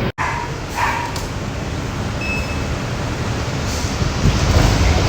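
Steady street noise: a continuous hiss with low traffic rumble, after a brief dropout in the sound just at the start.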